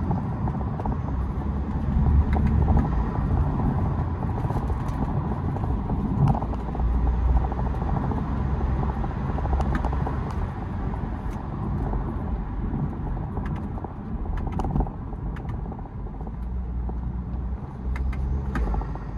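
BMW E92 320d's N47 four-cylinder turbodiesel, fitted with an open air intake, running under changing load: a low rumble that swells and eases several times, with a few short sharp sounds along the way.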